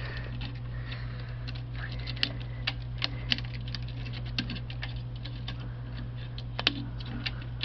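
Irregular small clicks and taps of 8mm film and a plastic reel being handled while the film end is threaded for rewinding, over a steady low hum.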